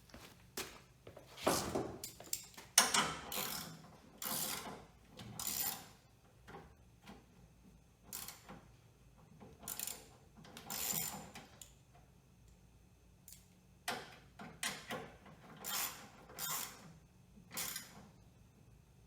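Hand tool working the screws of the adjustable metal door-panel clips on a car door: a series of short, irregular scraping and clicking strokes with pauses between them.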